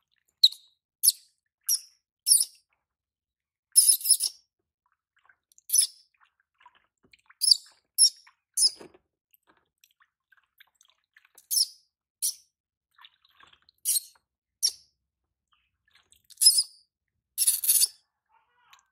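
Infant macaque giving shrill, high-pitched squeals, short ones repeated every second or so, with a longer drawn-out scream near the end. These are protest cries from a baby monkey that does not want to be bathed.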